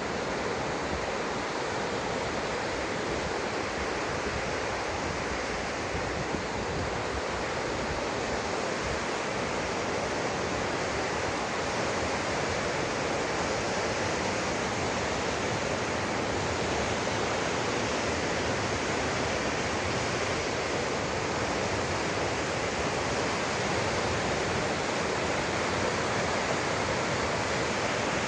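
Waterfall rushing as a steady, even roar of falling water, growing slowly a little louder.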